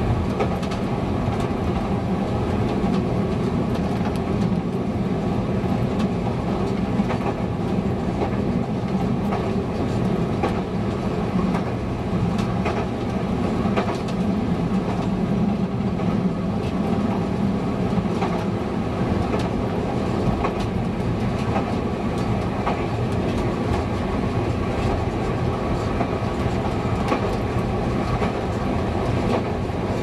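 Class 854 diesel railcar running at speed, heard from the driver's cab: a steady diesel engine drone with wheels clicking over the rails.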